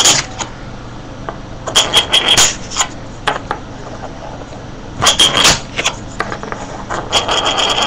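A Daisy Shatter Blast clay target spun on a wooden tabletop, clattering in short bursts of rapid rattling as it wobbles and falls flat, over and over as it fails to keep spinning.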